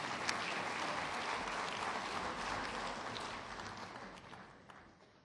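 Audience applause, steady at first and then dying away over the last second or so.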